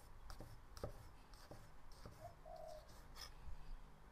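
Cleaver knocking on a thick wooden chopping board while dicing a tomato: a few faint, irregular strokes. A short, low hooting note sounds once about two seconds in.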